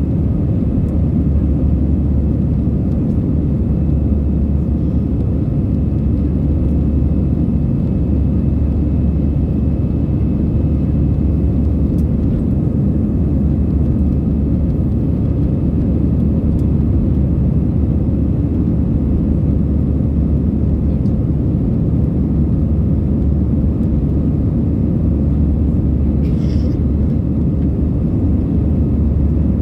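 Steady cabin noise of a jet airliner climbing after take-off, heard inside the cabin: an even, deep rumble of engines and airflow with a faint steady hum.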